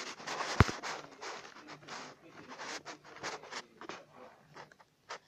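Pencil scratching across squared paper in quick, irregular strokes, with one sharp tap about half a second in; the strokes come thick at first and grow sparser toward the end.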